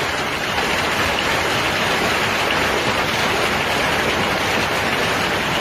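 Heavy rain pouring down in a storm: a steady, dense hiss that does not let up.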